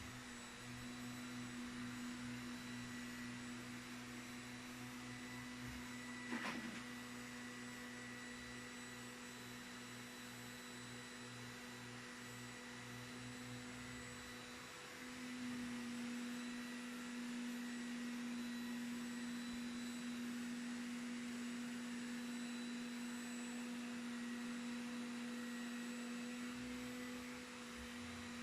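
Vacuum cleaner motor running with a steady low hum and faint overtones, growing slightly louder about halfway through. One brief, sharp sound stands out about six seconds in.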